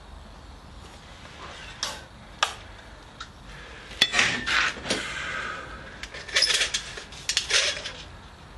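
Steel coil spring clinking and scraping against the steel rod it is being stretched along, in irregular metallic clinks with a longer scrape about four seconds in and a quick run of clinks near the end. The spring is a replica machine gun's main spring being pulled out to lengthen it.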